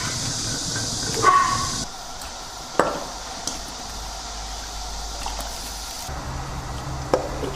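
Kitchen cooking sounds: a steady hiss from the pot or stove with a few sharp clinks and knocks of cookware. The hiss is strongest in the first two seconds and stops suddenly about six seconds in.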